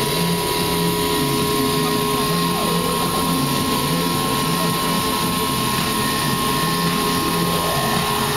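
Electronic drone: two steady held tones over a low pulsing rumble, with a short falling sweep about two and a half seconds in and a rising sweep starting near the end.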